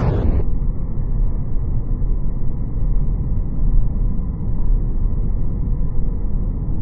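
Steady low rumbling noise, muffled, with no distinct shots or other sharp sounds in it.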